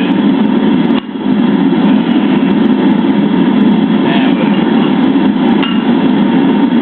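Home-made metal-melting furnace running with a loud, steady rushing noise while zinc melts, dipping briefly about a second in.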